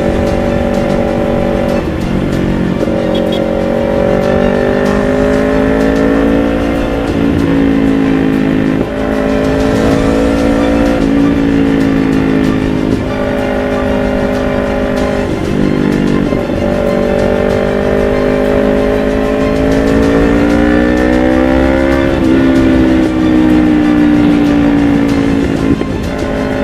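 Kawasaki Ninja 250 FI's parallel-twin engine through an Akrapovic full-system exhaust, ridden hard. The engine note climbs through the revs and drops sharply at each gear change, several times over.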